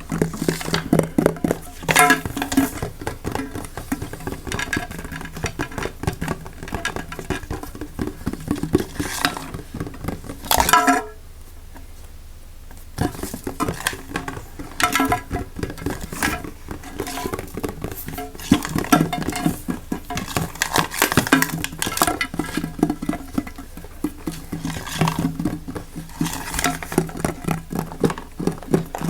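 Fast, aggressive ASMR tapping, scratching and clinking on assorted hard objects, with dense clicks that change character every few seconds. There is a short quiet pause about eleven seconds in.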